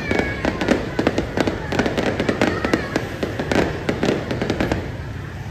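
Aerial fireworks going off: a dense, rapid run of crackling pops and bangs from bursting shells, thinning out and quieting near the end.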